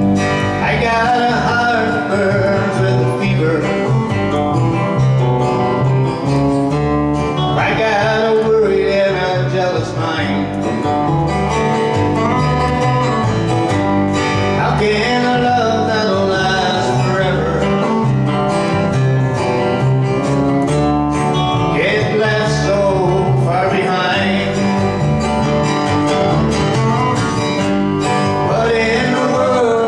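Country song with acoustic guitar accompaniment.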